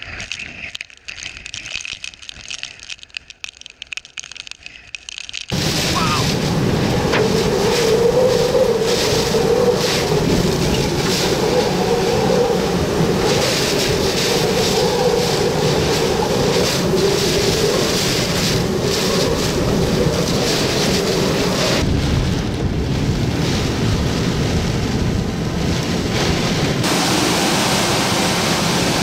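Hurricane wind and driving rain: a dense, loud rushing noise with a wavering howl. It comes in abruptly about five seconds in, after a quieter, gusty stretch.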